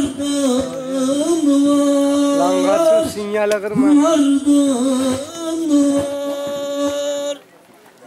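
A man singing a Turkish folk song unaccompanied into a handheld microphone, in long held notes with wavering ornaments. The singing breaks off near the end.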